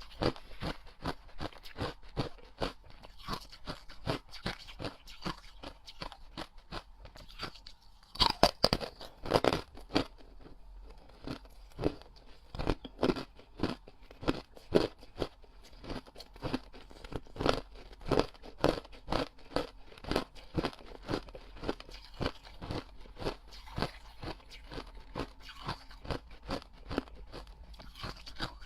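Ring-shaped ice pieces being bitten and chewed: a steady run of sharp crunches, with a louder flurry of crunches about eight to ten seconds in.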